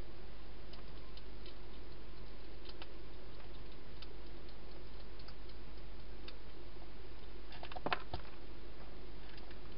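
Hedgehog eating inside a plastic feeding box: scattered small clicks and crunches of chewing, with a louder cluster of clicks about eight seconds in, over a steady low electrical hum.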